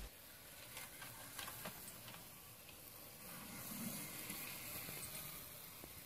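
Quiet room tone: a faint steady hiss, with a few light clicks about a second in.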